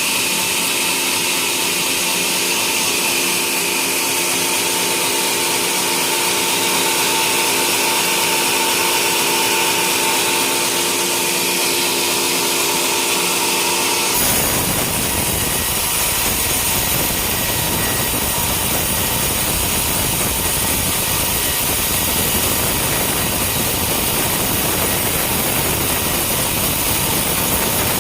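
Homemade sawmill running and sawing a coconut palm log: a steady machine tone under a high hiss. About halfway through, the sound changes abruptly to a denser, rougher noise.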